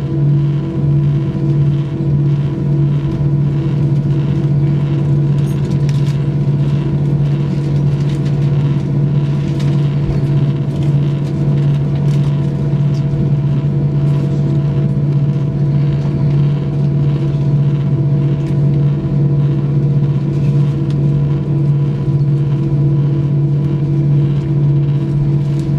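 Steady cabin drone of a taxiing Airbus A320, heard from a seat over the wing: the jet engines running at taxi power under an even low hum with a few constant higher tones.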